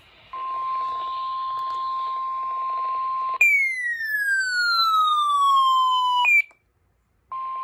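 NOAA Weather Radio 1050 Hz warning alarm tone, a steady single tone lasting about three seconds. It gives way to a louder electronic siren-like sweep that falls steadily in pitch for about three seconds and stops abruptly. After a short silence the steady alarm tone returns near the end.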